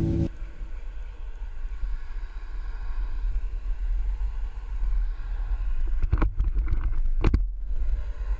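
Skateboard wheels rolling on asphalt, with wind buffeting the camera microphone as a steady low rumble. A few sharp knocks come near the end.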